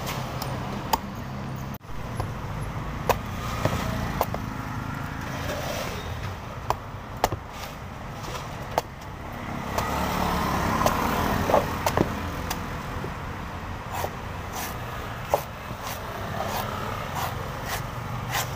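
A cleaver chopping into the husk of a young green coconut: sharp, separate chops every second or two, over a steady hum of street traffic.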